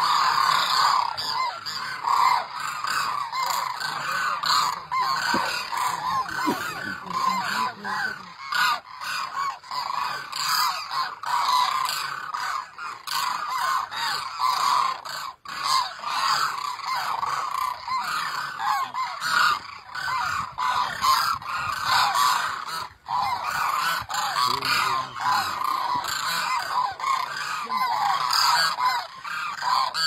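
A large flock of demoiselle cranes calling, many overlapping honking calls without a pause.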